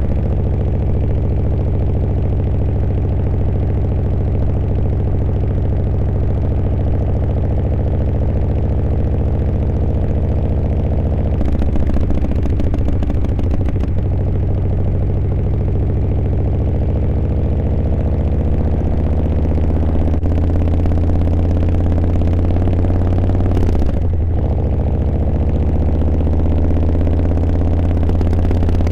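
Harley-Davidson Milwaukee-Eight V-twin engine running steadily while riding. Its pitch shifts briefly about twelve and twenty-four seconds in.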